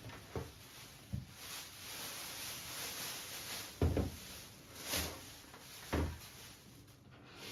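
Several separate soft knocks and clunks, about five in all, the loudest a little under four seconds in, like household items being handled or set down.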